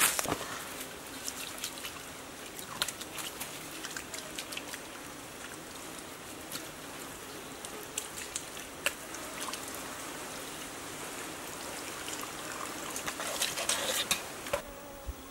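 Water trickling from a split-bamboo spout onto rocks, with small splashes as hands scoop it up, and a denser run of splashing near the end as water is splashed onto the face.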